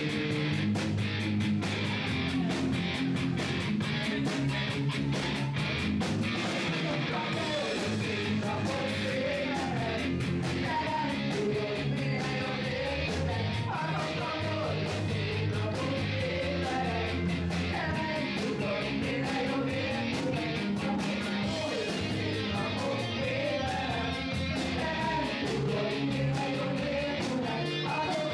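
Live rock band playing a song: distorted electric guitar and a drum kit keeping a steady beat, with singing over it.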